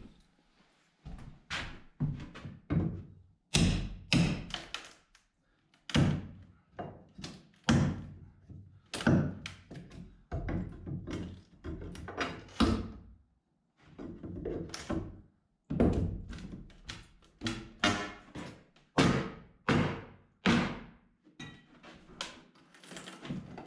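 Irregular series of heavy knocks, one to two a second with short pauses, typical of hammer blows on wooden wall boards and framing.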